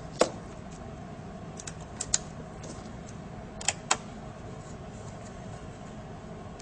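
Light clicks and taps of small screws and a screwdriver against the metal frame of a laptop LCD panel as the screws are put back in: one click just after the start, a quick pair about two seconds in and another pair near four seconds.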